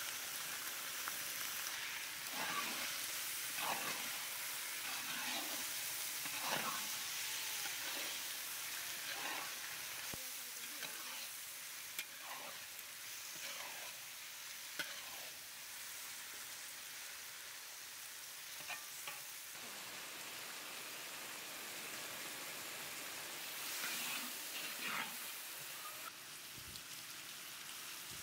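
Prawns sizzling in hot oil in a large metal wok, with a steady frying hiss. A metal spatula scrapes and stirs against the pan in repeated strokes, in bunches through the first half and again near the end.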